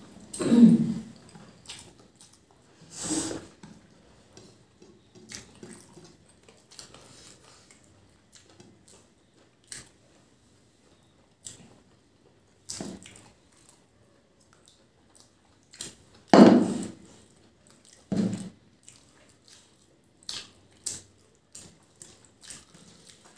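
Two people eating biryani by hand: wet chewing and lip-smacking, with soft squelches as fingers mix rice and gravy. A few louder short mouth sounds stand out, the loudest about two-thirds through.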